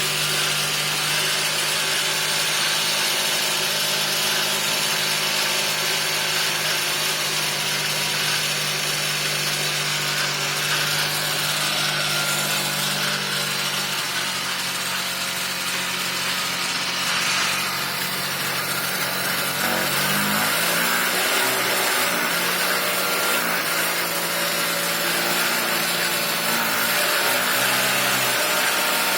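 Small two-stroke moped engine running steadily, its pitch dropping about halfway through and then rising again a little later, as with the throttle being eased and blipped.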